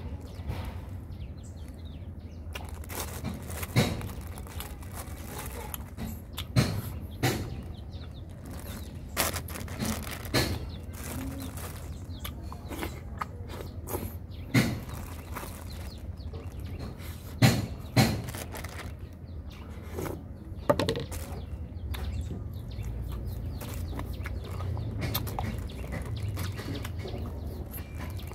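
Close-up eating sounds: chewing and handling a plastic bag of chicken and rice, with sharp, short clicks and taps at irregular moments over a low steady rumble.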